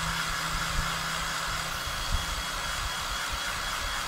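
Handheld hair dryer running steadily, a constant rush of blown air with a faint high whine, drying wet chalk paste on a silkscreen transfer.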